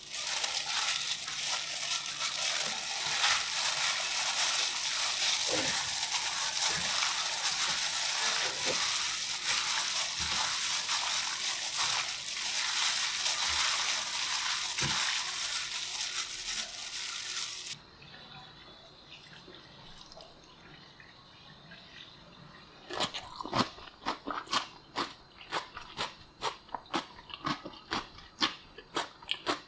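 Gloved hand tossing a julienned cucumber salad in mayonnaise dressing in a glass bowl: a dense, crackly rustle of the plastic glove and the wet vegetables, which stops about 18 seconds in. After a lull, crisp crunching of the raw vegetables being bitten and chewed starts about 23 seconds in, two or three sharp crunches a second.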